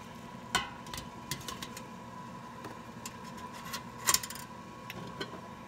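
Stainless steel steamer basket and frozen broccoli pieces clinking against a steaming pot: scattered light metal clicks and knocks, with two louder clatters about half a second in and about four seconds in, over a steady faint hum.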